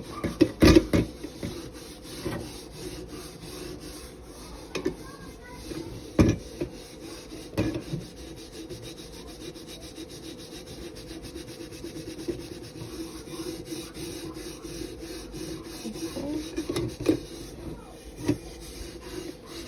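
A tea kettle being scrubbed with a soap pad: a continuous scratchy rubbing, with a few knocks of the kettle being handled.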